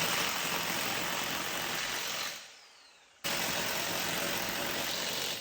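Bauer corded impact wrench running in two bursts of about two seconds each, with a short pause between, driving bolts home until they are locked on.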